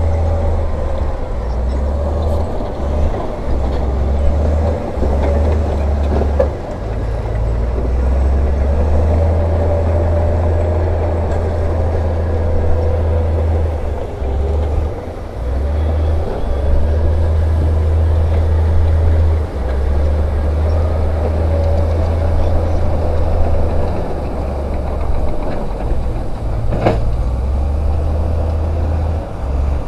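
Heavy diesel earthmoving machinery running steadily with a deep low rumble, and one sharp knock near the end.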